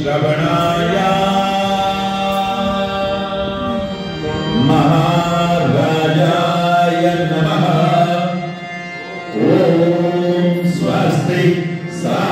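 A congregation singing a devotional aarti chant together, led by one voice on a microphone, with sustained drawn-out lines and two brief pauses between lines.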